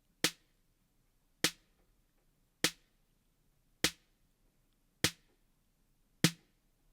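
Snare drum hit repeating six times, about every second and a quarter, each a short crack with a quick decay. It plays through an analog-modelled EQ plug-in with its bass band boosted while the boost frequency is swept.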